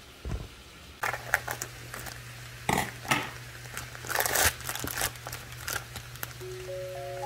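Plastic packaging of sliced Muenster cheese crinkling in irregular bursts as slices are peeled out of the pack by a plastic-gloved hand. There is a soft low thump just after the start, and a steady low hum comes in about a second in.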